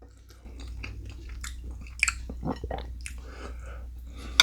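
A person chewing food close to the microphone, with a run of small irregular wet clicks and crunches, and a sharp clink right at the end.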